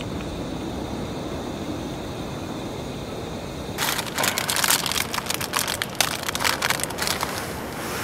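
A small plastic food wrapper being crinkled and torn open by hand, a dense run of crackles starting about halfway through and stopping just before the end, over a steady low rush.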